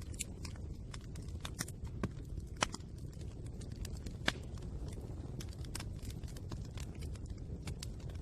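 Fire crackling: irregular sharp pops and snaps over a low steady rush of flame, with two louder pops a little under halfway through.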